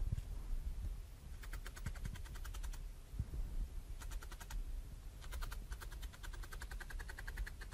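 Felting needle stabbing rapidly through wool into a foam mat: fast runs of crisp ticks, several a second, in three bursts (about a second and a half in, about four seconds in, and a longer run from about five seconds in), with a few soft low bumps between.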